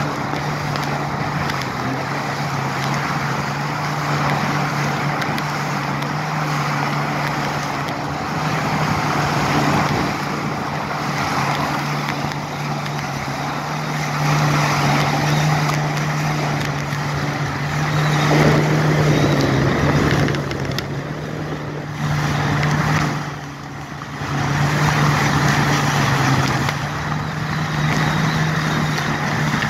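Jet ski engine running steadily at speed, with the rush of water spray and wind as it crosses open water; the sound dips briefly twice about two-thirds of the way in.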